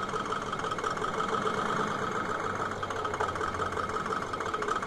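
An engine idling, a steady mechanical drone with an even hum that does not change.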